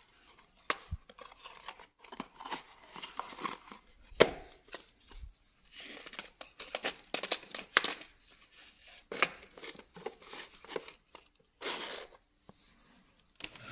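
Cardboard boxes and packaging rustling and crinkling as they are handled, broken by sharp clicks and knocks of plastic circuit breakers being taken out and set down on the table, with the loudest knock about four seconds in.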